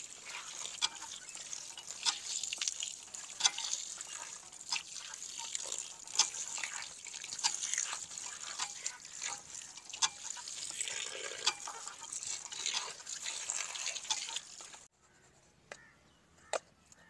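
Water running from a hand-pump spout and splashing into a bowl as raw chicken is washed, with irregular drips and clicks. It cuts off abruptly near the end.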